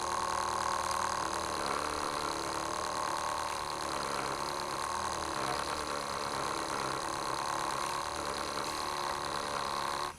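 JoolTool bench polisher's motor running steadily, spinning a 3M diamond polishing disc for the 50,000 polishing step: an even hum with a high whine over it. It cuts off near the end.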